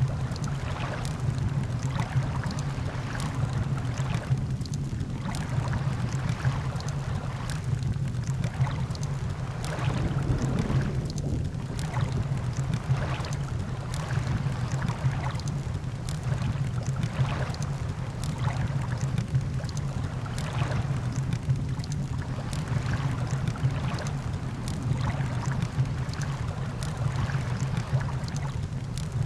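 Campfire crackling, with frequent irregular sharp pops, over a steady wash of ocean surf.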